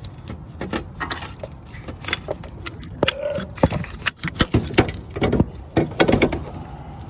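Metal tools and car parts clanking and rattling as they are handled in an engine bay: a run of sharp knocks and clinks that gets louder and busier about halfway through.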